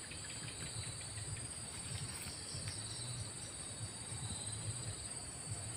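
Insects trilling steadily in a continuous high-pitched drone, with a faint low rumble from the camera pole being handled.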